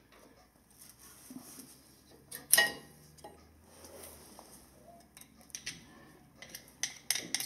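One sharp metallic clink about two and a half seconds in, then a few lighter clicks near the end: steel brake parts and tools being handled at a rear disc brake caliper bracket.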